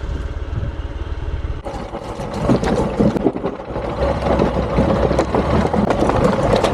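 A motorcycle engine running at low revs, with a steady low rumble. About two seconds in, a busy clatter of knocks and rattles joins it and carries on to the end.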